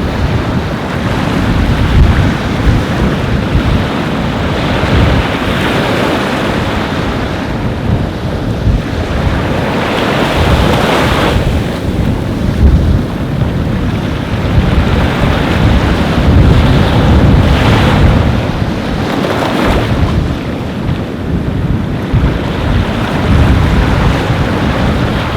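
Ocean waves breaking and washing up a beach, swelling and easing in surges, with wind buffeting the microphone in low rumbles.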